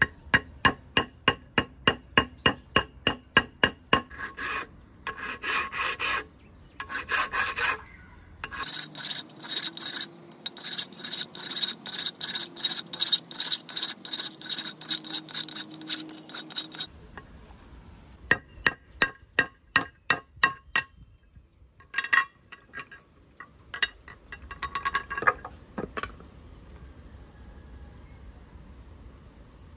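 A hand file rasping back and forth over a workpiece in quick strokes, about four a second, in several runs broken by short pauses.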